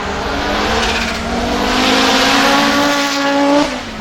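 Audi Quattro S1 E2 Group B's 2.1-litre turbocharged inline-five under acceleration, its note climbing steadily in pitch before dropping sharply near the end, as at a gear change or lift-off.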